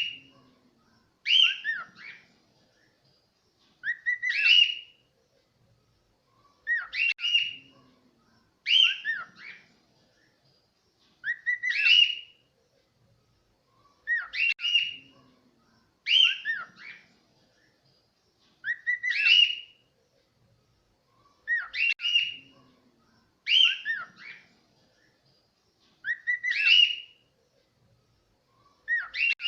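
Cockatiel whistling the same short tune over and over, about once every two and a half seconds, each phrase a quick run of rising whistles.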